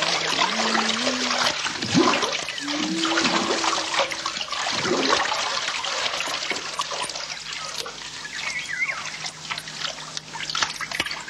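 Water splashing and trickling, a dense crackle of small splashes, with a few short low tones in the first four seconds.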